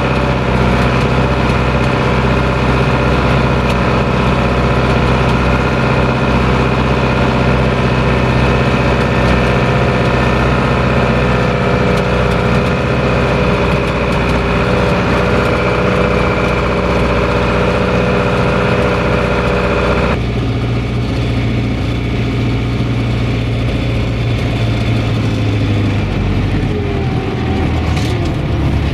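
International 844S tractor's diesel engine running steadily under load while pulling a harrow, at first heard from inside the cab. About two-thirds of the way through the sound changes abruptly and becomes duller, and near the end the engine note drops a little, with a few clicks.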